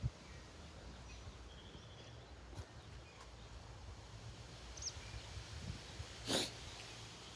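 Quiet outdoor background with a faint high chirp, then one short noisy burst from an animal about six seconds in.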